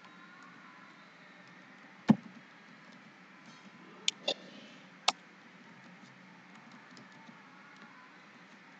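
Faint typing on a computer keyboard, soft key clicks over a low hiss. A sharp knock about two seconds in, and three shorter knocks or clicks between about four and five seconds.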